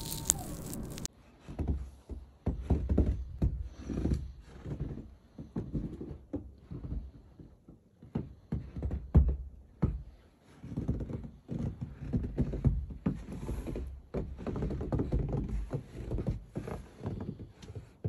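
About a second of steady aircraft drone, then irregular gusts of wind buffeting the phone's microphone, rising and falling in surges.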